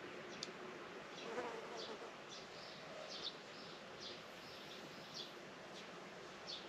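Outdoor farm ambience: a flying insect buzzes close by about a second and a half in, over a steady soft hiss and short high chirps repeating every half second or so.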